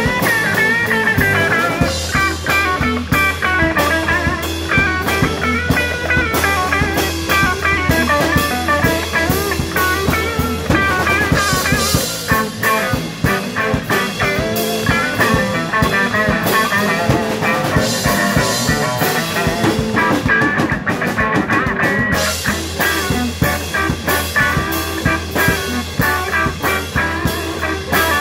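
Live rock band playing an instrumental passage: electric guitar lead lines over distorted rhythm guitar, electric bass and drum kit.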